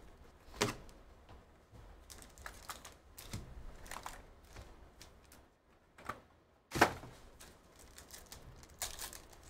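Hands opening a trading-card hobby box and its foil card packs: scattered clicks, rustles and crinkles of cardboard and wrapper, the loudest a sharp crackle about seven seconds in, with more crinkling near the end as a pack is worked open.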